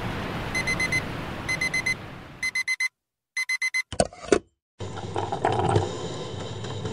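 Digital alarm clock beeping in quick groups of four, four groups about a second apart, over a soft steady hiss. Then a couple of sharp knocks, and a steady noisy sound that runs on to the end.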